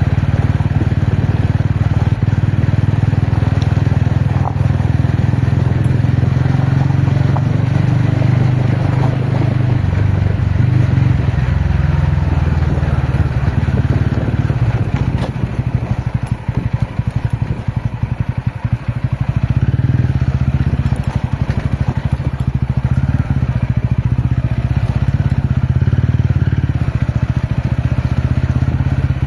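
TVS Ronin motorcycle's single-cylinder engine running steadily under way on an off-road ride, easing off for a few seconds just past the middle before picking up again.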